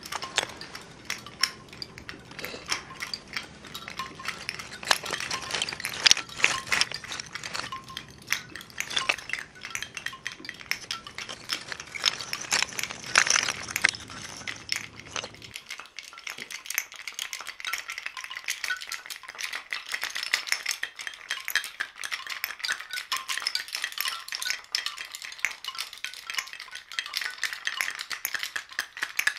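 Oyster shells clinking and rattling against one another in many small, sharp clicks. About halfway through, the low background hum drops away and the clicking turns into a quicker, denser rattle.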